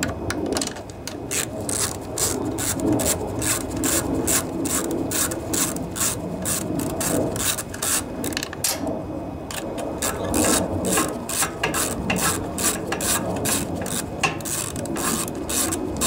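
Ratchet wrench with a 10 mm socket on an extension clicking steadily, about four clicks a second, as a nut is backed off its stud, with a short pause about nine seconds in.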